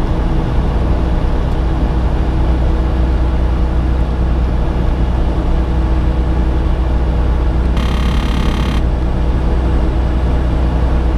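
Steady low drone of a semi truck's engine and tyre road noise inside the cab at highway speed. A separate brief tone lasting about a second comes in about eight seconds in.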